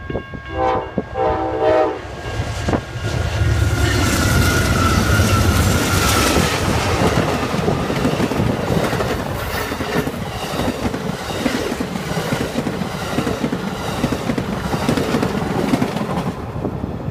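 Amtrak passenger train led by three GE P42 diesel locomotives: two short horn blasts about a second in, then the locomotives pass with a heavy low engine rumble. The double-deck Superliner cars follow with a steady clickety-clack of wheels over the rail joints.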